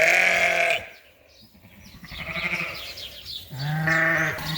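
Sheep bleating in a barn pen: three calls, a loud one at the start, a fainter one in the middle, and another loud one near the end.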